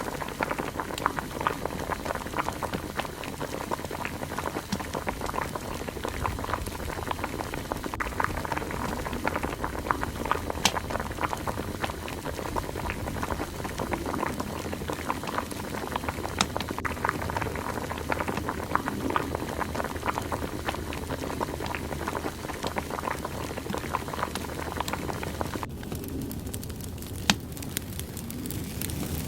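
A pot of water boiling hard over a wood fire, a steady dense bubbling. About 26 seconds in it gives way suddenly to the thinner crackle of burning firewood, with one sharp pop a second or so later.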